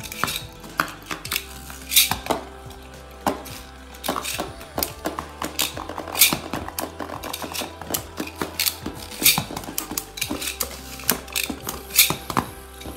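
Beyblade Burst spinning tops clashing inside a fabric storage box: irregular sharp clacks of plastic and metal tops striking each other.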